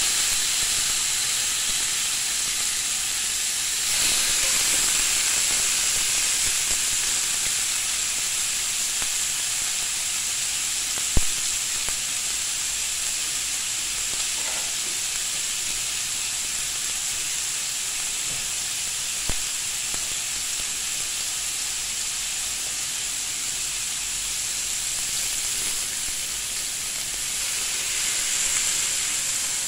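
Marinated chicken kebabs on bamboo skewers sizzling steadily on a hot grill pan, with a sharp knock about eleven seconds in and a lighter one later.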